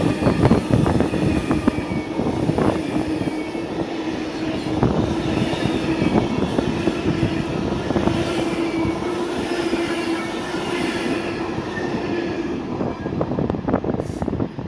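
Belgian intercity train's coaches rolling past close by: steady running noise with a hum, the wheels knocking over rail joints and a faint squeal. The sound falls away suddenly just before the end as the last coach clears.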